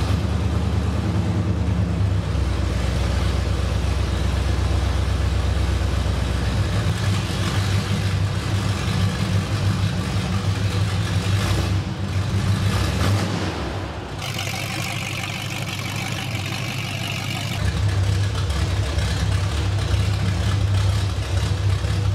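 A Plymouth Road Runner's Mopar V8 running steadily, with an even beat that changes abruptly a few times as the sound cuts between takes. A thin, higher hiss is laid over it for a few seconds past the middle.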